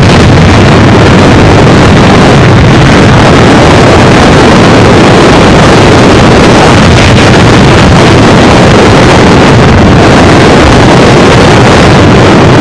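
Hurricane-force wind and driving rain: a steady, very loud rush that overloads the recording.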